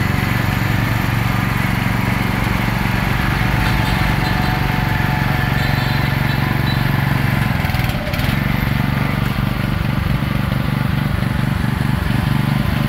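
Kubota gasoline engine of a DP-4WD four-wheel mini dumper running steadily while its hydraulic dump bed tips up, with a brief dip in the sound about eight seconds in.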